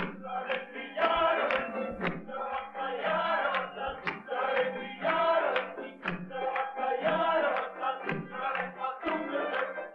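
A group of voices singing an Albanian folk dance song together over a steady low tone, with a regular beat running through it.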